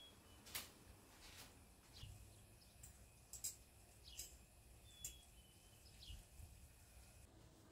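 Near silence: quiet room tone with a few faint, scattered light clicks and brief high chirps.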